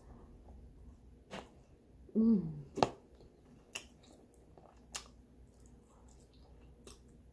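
Small metal spoon clicking now and then against a plastic food container as tortellini is picked out, the sharpest click a little before three seconds in. A little after two seconds there is one short murmur of the voice, falling in pitch.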